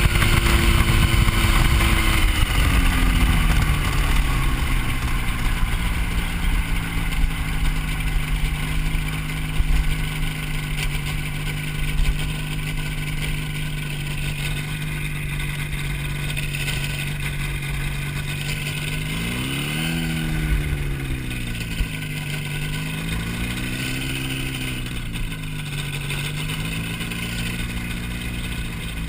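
Hy-Tek Hurricane ultralight airplane's engine running in flight. The engine speed drops about two seconds in and then holds steady. Near the end it rises and falls twice.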